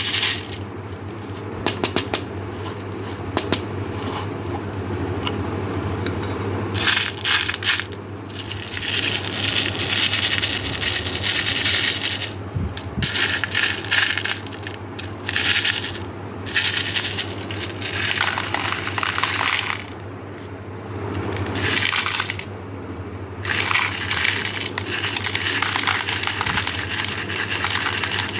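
Small hard candies clattering and rattling as they are poured into a plastic container, in runs of a few seconds with short pauses between, over a steady low hum.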